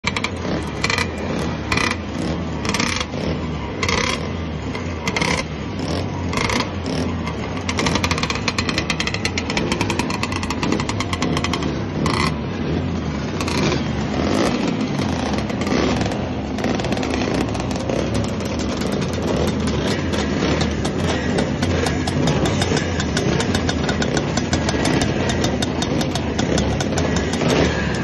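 Classic two-stroke racing motorcycle engines running and being revved, the throttle blipped about once a second for the first several seconds, then several engines running together more steadily.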